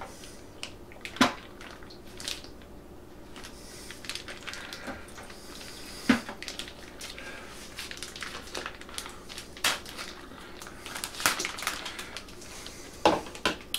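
Plastic turkey bag rustling and crinkling as it is snipped open with scissors and peeled off a raw turkey, with a few sharp clicks and knocks of handling scattered through.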